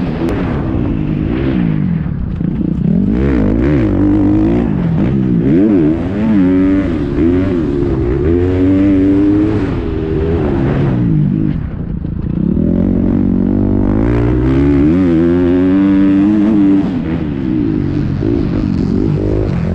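KTM 350 XC-F single-cylinder four-stroke dirt bike engine at race pace, revving up and down as the throttle opens and closes through turns and gear changes. The engine eases off briefly about twelve seconds in. It is heard from a helmet-mounted camera.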